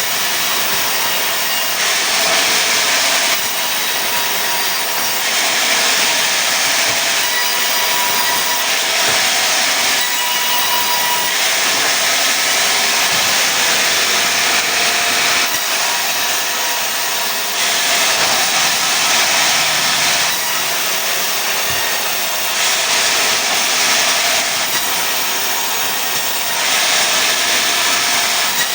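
Sawmill saw cutting pine into boards: a loud, steady sawing noise whose high hiss swells and eases every two to three seconds.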